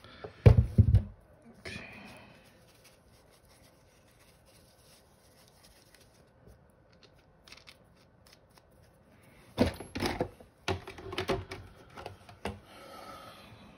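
Handling noise of tools on a towel-covered bench: a couple of knocks in the first second as the pistol is set down, then after a quiet stretch a few seconds of clicking and rattling of small hard parts as a torque driver and its bits are picked out.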